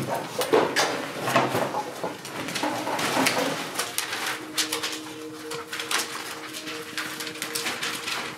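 Papers rustling and pages turning, with short clicks and shuffles as people settle at classroom desks. About four seconds in, a low, steady two-note drone comes in underneath.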